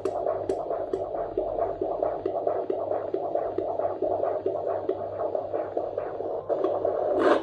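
Unborn baby's heartbeat on a Doppler fetal heart monitor: a fast, rhythmic whooshing throb, a little over two beats a second, with a louder rush near the end.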